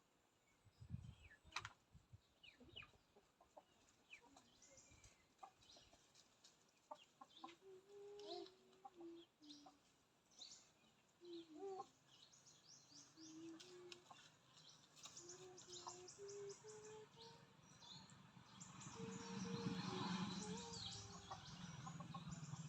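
Chickens clucking softly in a string of short, low notes, with high small-bird chirps over them and a soft rustling noise that builds near the end.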